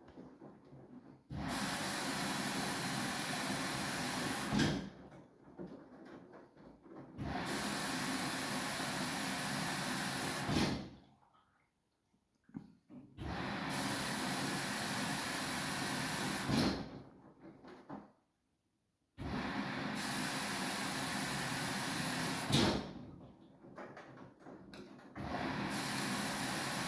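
Samsung front-loading washing machine in its wash phase: the drum motor turns the drum and tumbles the laundry for about three and a half seconds, stops for two or three, then starts again, five runs in a regular rhythm. Each run ends with a brief louder peak.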